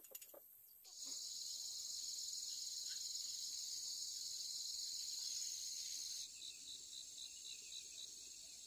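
Insects trilling in a steady, high-pitched chorus that starts abruptly about a second in, after a few faint clicks; near the end it changes to an even pulsing chirp, about three pulses a second.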